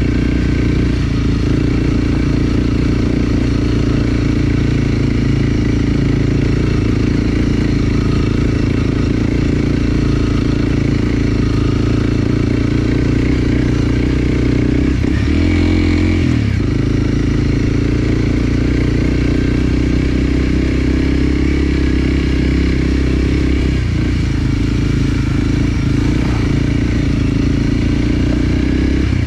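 Enduro dirt bike engine running steadily as the bike is ridden, with a brief change in engine note about halfway through.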